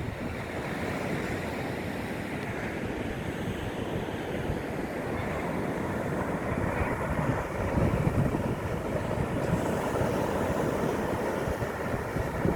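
Steady wind rumbling on the microphone over the wash of ocean waves, swelling a little now and then.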